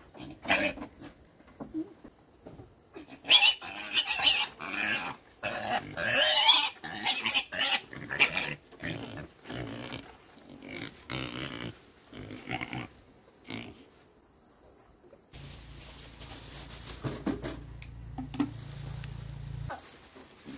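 A pig being forced into a wire-mesh cage squeals in a string of loud, shrill cries, loudest a few seconds in, then gives weaker squeals and grunts. Near the end a steady low rumble runs for a few seconds.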